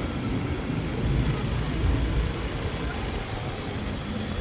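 Motor scooter ride: a low, uneven rumble of engine and wind noise from riding along the road among other scooters.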